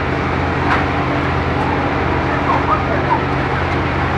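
A large vehicle's engine idling in a steady low hum under broad street noise, with a few faint short high-pitched chirps over it.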